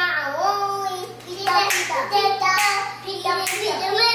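Young children's voices singing, with hand claps about once a second.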